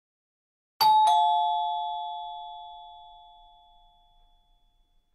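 Two-note 'ding-dong' chime, like a doorbell, struck about a second in, the second note lower, both ringing out and fading away over about four seconds.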